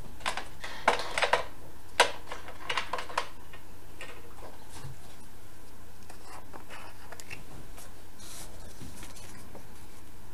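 A few light clicks and taps of small craft supplies handled on a craft mat, bunched in the first three seconds, then only faint scattered ticks over a steady background hiss.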